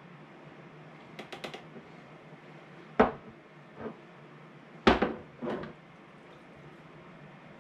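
Glass canning jars handled and set down on a cutting board: a few light ticks of a utensil against glass about a second in, then two sharp knocks about three and five seconds in, with smaller clinks after each.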